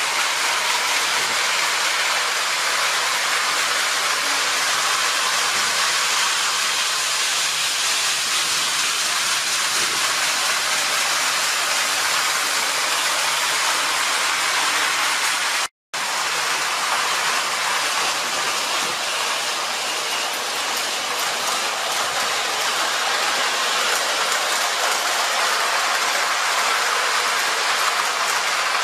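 Tin-plate O-gauge electric model trains running on three-rail metal track: a steady rolling rattle of metal wheels on the rails. The sound cuts out for a moment about halfway through.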